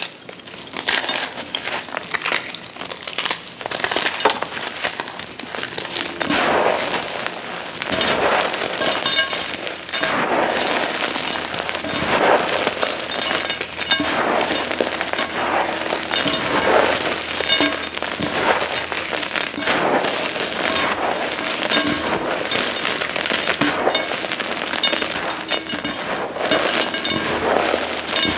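A pressed block of gym chalk being crushed, giving dense crackling crunches that come in repeated bursts every second or two.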